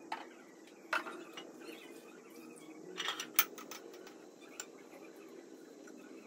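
A few light clinks and knocks of household objects being handled and set down, the loudest cluster about three seconds in, over a faint steady hum.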